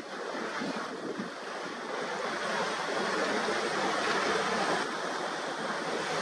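Waves and rushing water with wind buffeting the microphone, a steady rushing noise that swells somewhat toward the middle.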